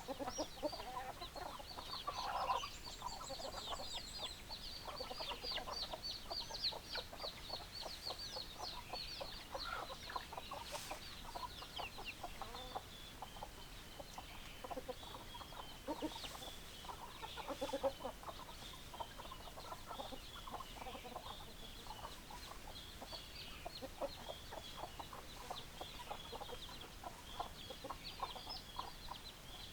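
Chickens: hens clucking, short repeated clucks throughout, with a fast high chirping running over them for the first dozen seconds that thins out after.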